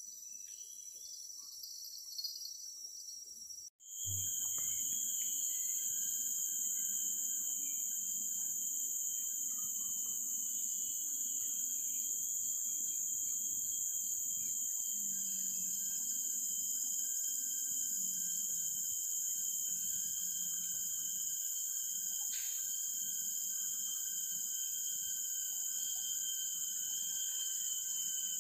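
Steady chorus of forest insects: several shrill, unbroken tones at different pitches. The sound drops out for an instant about four seconds in and comes back louder.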